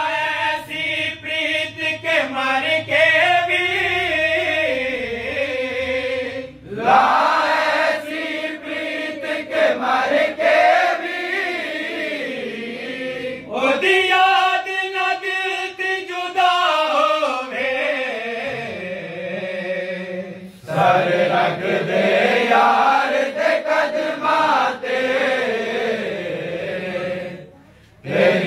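Group of men's voices chanting a devotional refrain together, in long phrases of about seven seconds with a brief break between each.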